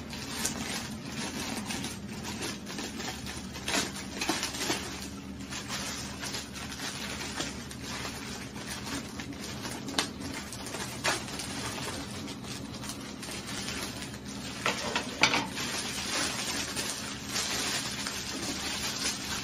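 Clear plastic wrapping being cut and pulled off a handbag, crinkling and rustling, with a few sharper crackles, the loudest a little past the middle.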